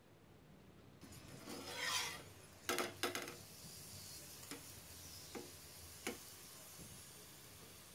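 A flat metal spatula scrapes across an iron tawa and knocks on it while turning a paratha frying in oil. Two sharp knocks come about three seconds in, then a few lighter taps, over a faint steady sizzle.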